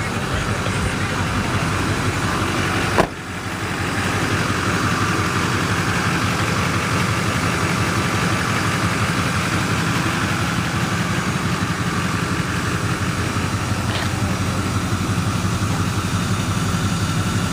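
6.6 L LBZ Duramax turbo-diesel V8 idling steadily, with one sharp click about three seconds in.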